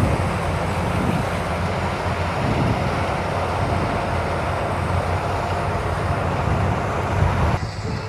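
Bakhsish 930 combine harvester running steadily as it cuts wheat, a continuous engine and machinery noise heavy in the low end. Near the end the sound drops off abruptly and becomes quieter.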